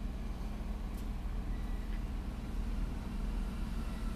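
Steady low background hum with a faint click about a second in.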